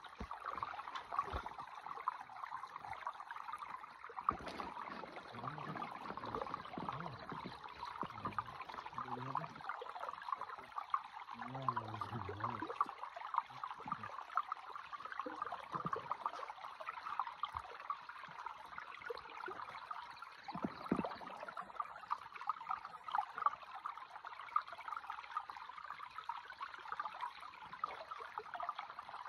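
Stream water running over stones: a steady rushing sound.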